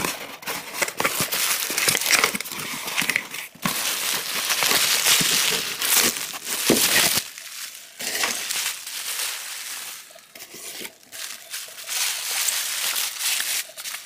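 Corrugated cardboard box being opened by hand, its flaps rubbing and scraping, with bubble-wrap packing crinkling and rustling. The handling is irregular and continuous, easing off a little near the end.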